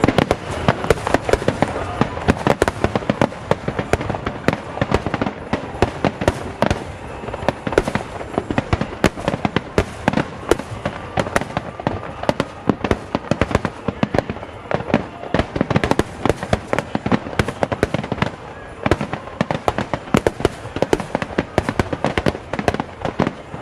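A dense barrage of aerial fireworks bursting, sharp bangs following one another several times a second without a break.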